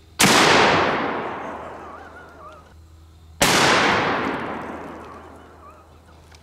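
Two 12 gauge shotgun slug blasts about three seconds apart, each followed by a long echo that dies away over a couple of seconds.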